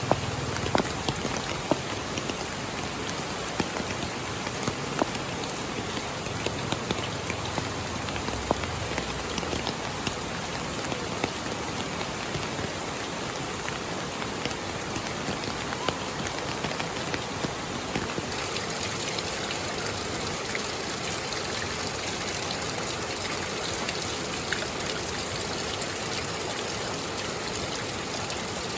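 Steady rain, with many separate drop hits ticking through the hiss. About two-thirds of the way in the sound turns brighter and hissier.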